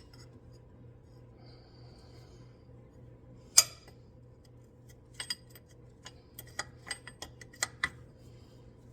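Sharp metallic clinks of a wrench working on a CV axle nut: one loud clink about three and a half seconds in, then a run of lighter, irregular clinks over the last few seconds.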